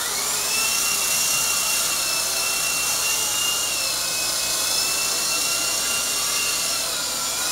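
Small remote-control helicopter's motor and rotors spinning up with a quickly rising whine, then running at a steady high whine that dips briefly and comes back up near the end.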